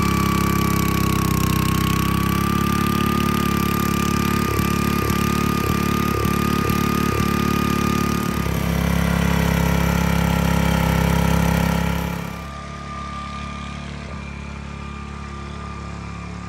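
Small gasoline engine of a rear-tine rototiller running steadily under load as it churns weedy ground, with a run of about six dull knocks, roughly two a second, near the middle. About twelve seconds in it becomes quieter and duller, as if heard from farther off.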